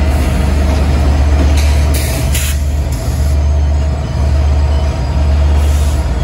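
Diesel freight train running with a steady, loud low rumble, with short hisses about two seconds in and again near the end.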